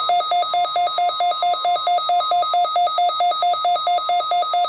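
Weather alert radio's alarm sounding, set off by the NOAA Weather Radio weekly test signal: a loud, rapid beep alternating between a lower and a higher pitch about five times a second.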